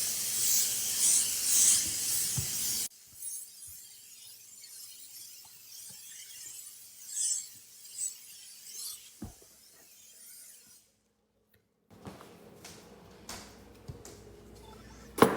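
Aerosol can of Lysol disinfectant spraying in a pulsing hiss that stops abruptly about three seconds in, followed by faint handling knocks and one sharp clack near the end.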